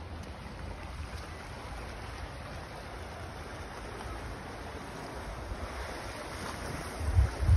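Wind buffeting the microphone over a steady wash of sea surf on a rocky shore, with a stronger gust about seven seconds in.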